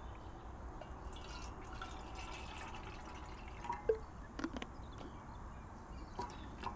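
Water poured from a plastic bottle into a metal pot, with light clicks and small knocks of the bottle and cap being handled, and a sharp knock at the very end.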